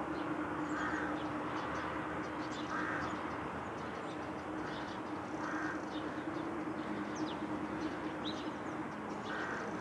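Birds calling by a river: four short calls spaced a few seconds apart, and brief high chirps of small birds, over a steady low hum.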